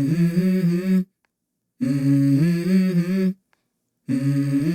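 Background music: a hummed vocal melody sung in short phrases of about a second and a half, each ending in a brief silence.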